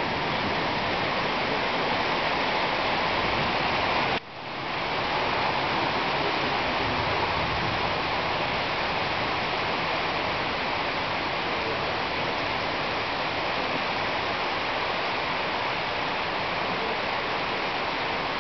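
Heavy rain pouring down in a steady, dense hiss. The sound drops out for an instant about four seconds in, then comes back.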